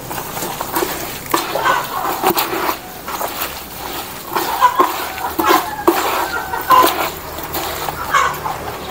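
Chickens clucking in short scattered calls, over the wet squelching and scraping of a hand mixing feed mash of bran, pellets, rice and water in a bucket.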